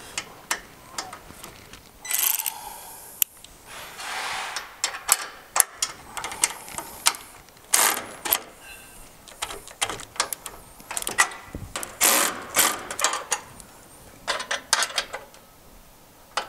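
Hand socket ratchet tightening the nuts on a trailer jack bracket's clamp bolts, with a 17 mm wrench holding the other side: repeated bursts of ratchet clicking on the return strokes, among single metal clinks of the tools on the steel bracket.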